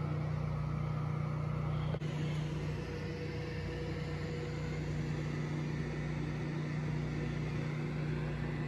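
Steady low machine hum with a faint hiss over it, and a single small click about two seconds in.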